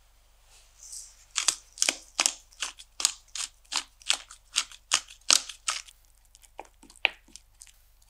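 Hand pepper mill grinding black peppercorns: a quick run of crisp crunching twists, about three a second, then a few lighter clicks near the end.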